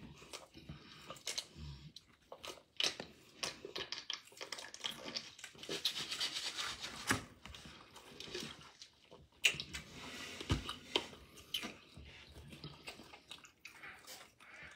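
Chewing and smacking mouth sounds of people eating breakfast food, with many short clicks and a few noisy sips from a cup.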